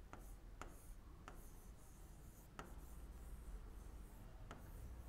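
A pen stylus writing on an interactive display board. About five sharp, irregular taps as it touches the surface, with faint scratchy strokes between them.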